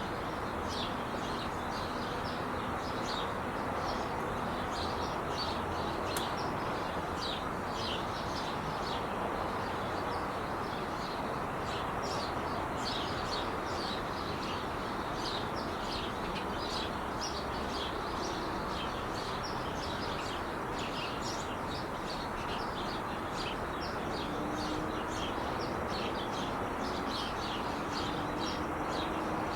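Small birds chirping several times a second over the steady rush of freeway traffic.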